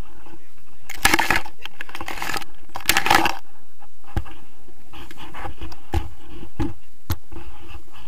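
Wind rushing over an action camera's microphone in flight under a paraglider, with two louder rushes about one and three seconds in, then a few short low knocks.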